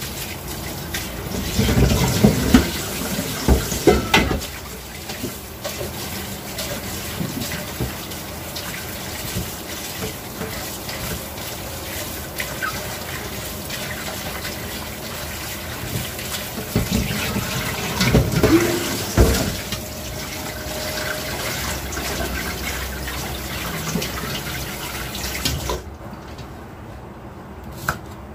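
Water running from a kitchen tap into a sink, with louder splashing twice. The flow stops near the end.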